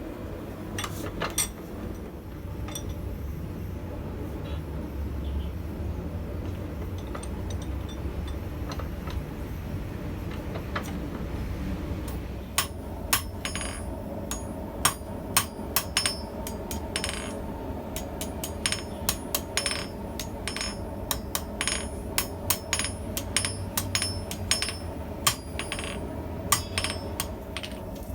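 Hand hammer striking steel on an anvil while forging blacksmith tongs: sharp ringing blows that begin about halfway through and come in quick irregular runs, over a steady low rumble.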